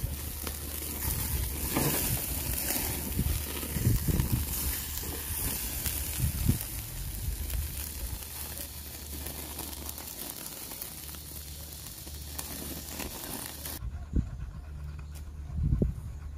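Tomahawk steaks sizzling on a wire grill over charcoal: a steady hiss with light crackles over low rumbling. The sizzle cuts off abruptly near the end, leaving quieter outdoor sound.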